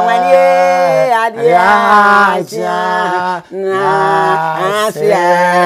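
A man's voice singing unaccompanied in long, drawn-out notes that slide up and down, with a pause between phrases about every second.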